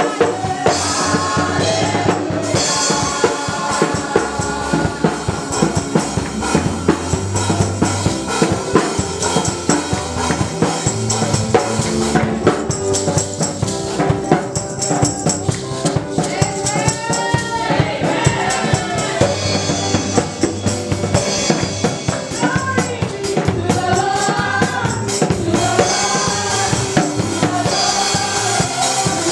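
Live gospel worship music: a woman singing lead over backing singers, with keyboard and a drum kit keeping a steady beat. Some of her long held notes waver.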